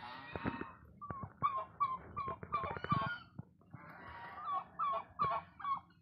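Domestic fowl calling: a broader call at the start, then two runs of short repeated calls at about three a second, the first beginning about a second in and the second about four and a half seconds in, with a few sharp clicks among them.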